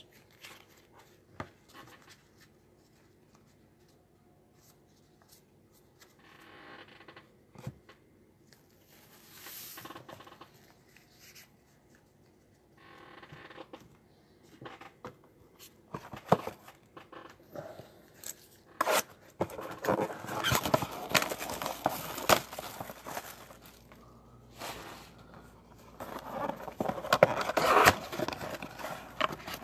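Trading-card packaging being handled and opened: light clicks and shuffling of cards and cardboard, then from about twenty seconds in, runs of crackling, tearing noise as the box and its wrapping are torn open.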